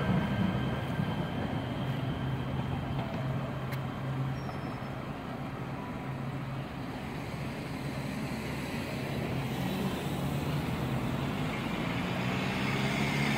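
Metro Blue Line light-rail train running away down the track, a low steady hum under rolling noise that fades, with the noise growing louder again near the end.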